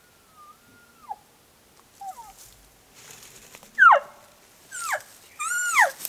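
Elk calls. A thin, high whistle is held for about a second near the start. A faint short call comes around two seconds in, then three loud, sharply falling mews in the second half, the first the loudest.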